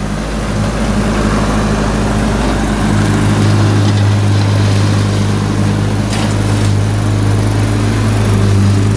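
Mini excavator's diesel engine running steadily under work, a low even hum whose note shifts and grows a little stronger about three seconds in.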